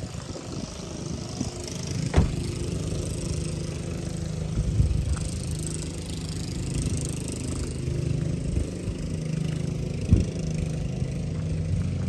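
An engine idling steadily, with a couple of sharp knocks, one about two seconds in and one about ten seconds in.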